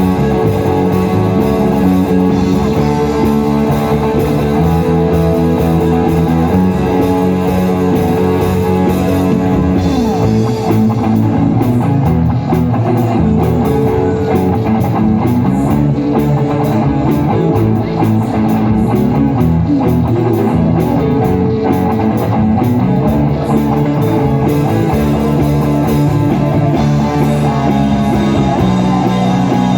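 Live worship band playing a song, with guitar to the fore over a drum kit.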